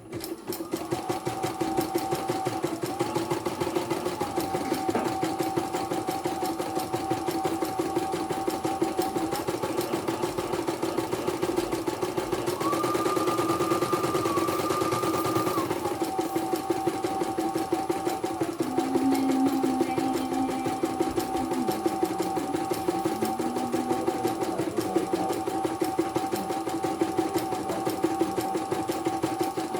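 Portable computerized embroidery machine stitching at speed, with a rapid, even needle clatter over a steady motor whine. Partway through, the whine steps up in pitch for a few seconds. The machine is being test-run after servicing.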